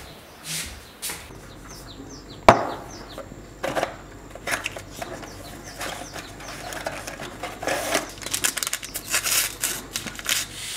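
Hands opening a cardboard tea box and handling a paper tea-bag sachet: rustling, crinkling and clicking of card and paper that grows busier near the end, with one sharp knock about two and a half seconds in.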